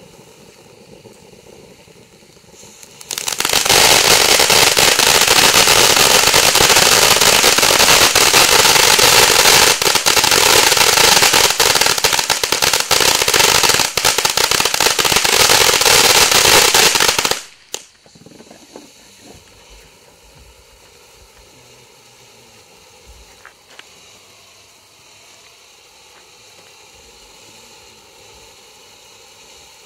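Ground firework fountain burning. A faint spray hiss runs for about three seconds, then a loud, dense crackling starts and lasts about fourteen seconds before stopping suddenly. After that a faint hiss of sparks remains, with a few scattered pops.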